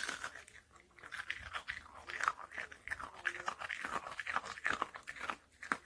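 A dog crunching and chewing a hard baked dog cookie, a rapid irregular run of crunches.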